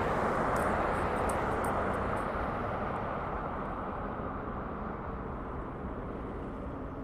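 Steady rushing noise of passing vehicle traffic that slowly fades, with a few faint ticks in the first couple of seconds.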